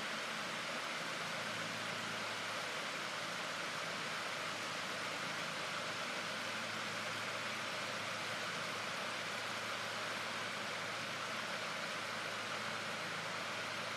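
Shallow river running over riffles, a steady unbroken rush of water. A faint low hum lies underneath.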